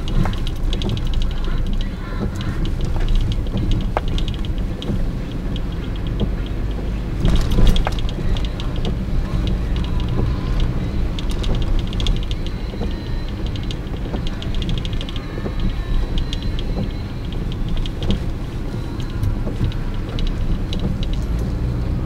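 Inside a moving car on a rain-soaked road: the steady low rumble of engine and tyres on the wet surface, with stretches of fine rapid ticking and a few single clicks.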